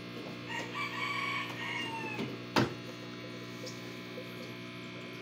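Steady electrical hum, with a bird calling once in the background for about two seconds near the start, and a single sharp click about two and a half seconds in.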